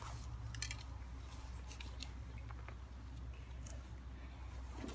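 Faint scattered clicks and rustles of plastic safety glasses and their packaging being handled and put on, over a steady low rumble.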